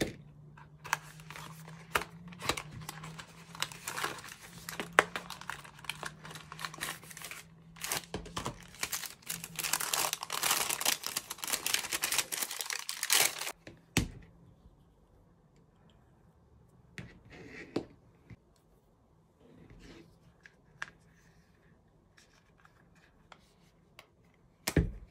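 Plastic and paper packaging of a Spigen Rugged Armor phone case being torn open and crinkled, a dense rustle for about thirteen seconds that ends in a sharp snap. After that come quieter scattered handling clicks, and a loud click near the end as the case is pressed onto a Pixel phone.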